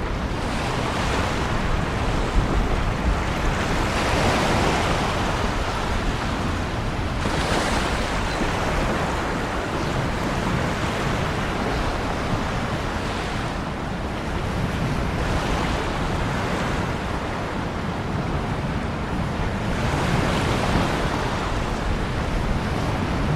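Ocean waves washing onto a shore in a continuous surf, with separate swells of surging hiss every few seconds.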